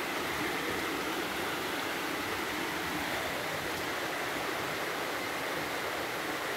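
Steady rush of running water from a rocky mountain stream.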